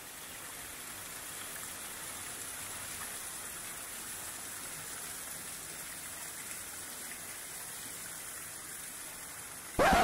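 Small cascade of water splashing steadily onto rocks and leaf litter, an even rushing splash. Just before the end comes a much louder burst lasting about half a second.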